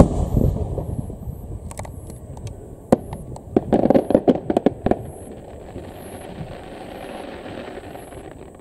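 Aerial firework shells exploding: a loud deep boom with a rumbling echo, then about three seconds in a rapid string of sharp cracks, followed by a softer lingering noise that fades.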